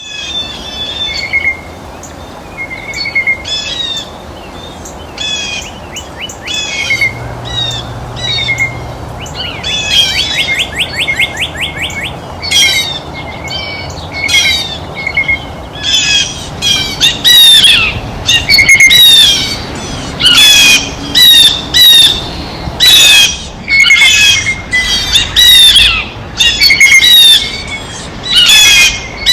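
Blue jays calling at a feeder: repeated short, harsh squawking calls, sparse at first, then louder and coming in quick succession from about halfway through, with one rapid stuttering run of notes a third of the way in.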